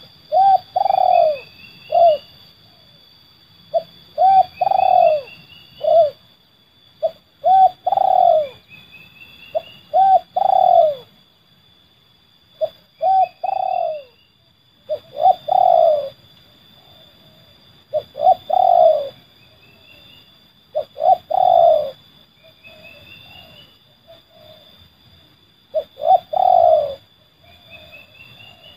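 Spotted dove (terkukur) cooing in the 'seladang gantung' song style: a low phrase of about three notes, the middle note longest, repeated every two to three seconds. A steady high-pitched whine runs underneath.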